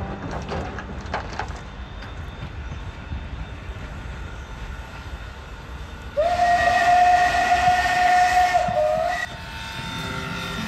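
Steam locomotive whistle blowing one long blast of about three seconds, starting about six seconds in with a short upward slide and dipping as it ends. It sounds over the low rumble and a few clanks of a moving train.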